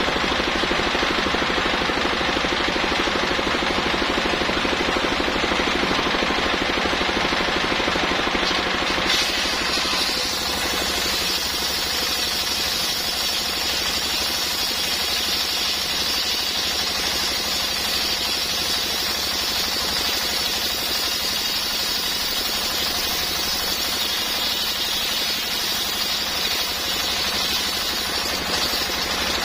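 Large circular saw running and cutting coconut palm trunk, a steady machine drone with a hiss of the blade in the wood; about nine seconds in the sound turns brighter and hissier and stays that way.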